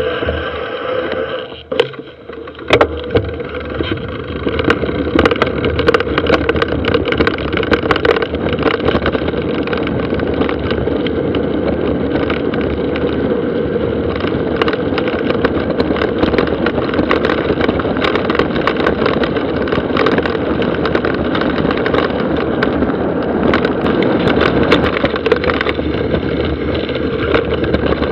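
Mountain bike rolling downhill at speed on a gravel road and dirt trail, picked up by an action camera's built-in microphone: a steady rush of riding noise with frequent clicks and rattles from the bike over the rough surface. It starts off quieter and choppy, then settles into the steady rush about four seconds in.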